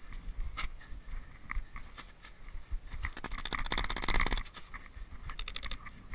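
Footsteps crunching in snow. Near the middle comes a rapid rasping run of clicks lasting about a second and a half, and a shorter one comes near the end.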